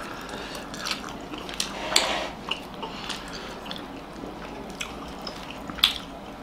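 Two people eating steamed egg momo dumplings up close: wet chewing and biting, with a few sharp clicks of forks against plates, the loudest just before the end.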